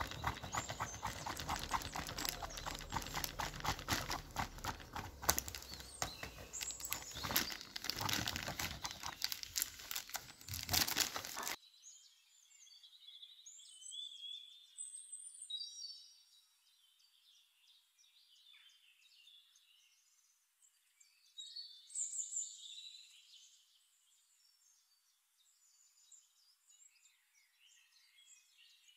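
A metal spoon clicking and scraping rapidly against a ceramic plate as crumbly cookie dough is mixed. About 11 seconds in it cuts off abruptly, leaving faint, high-pitched bird chirping.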